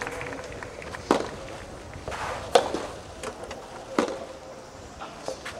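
Soft tennis rally: a soft rubber ball struck by rackets, three loud hits about a second and a half apart, with fainter knocks between them.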